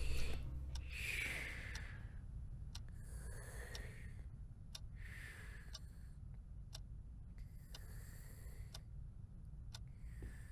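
A clock ticking faintly, roughly once a second, over a low steady room hum, with a few soft breaths between the ticks. Music fades out in the first second or two.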